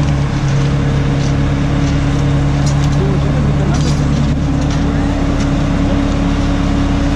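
Heavy construction machine engine running steadily at a constant speed, a low even hum with no revving.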